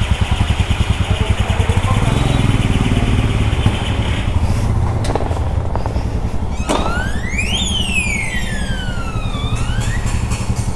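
Royal Enfield Himalayan's 411 cc single-cylinder engine running with an even pulsing beat, strongest in the first couple of seconds. From about two-thirds of the way in, a separate whine rises, falls and rises again in pitch over it.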